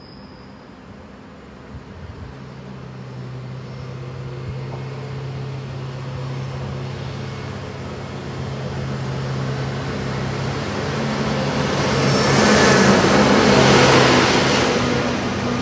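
Matisa track tamper running along the line under its own diesel power. A steady, one-pitch engine drone sets in a couple of seconds in and grows louder as it approaches, then swells with wheel-and-rail noise to its loudest as the machine passes close, before starting to fade.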